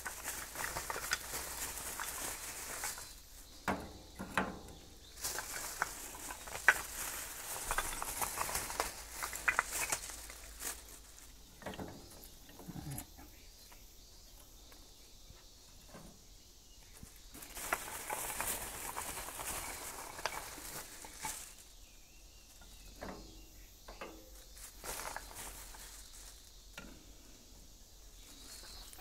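A plastic bag rustling on and off while pieces of scrap lumber are laid on a metal grill grate, with scattered wooden clacks and knocks as the sticks are stacked.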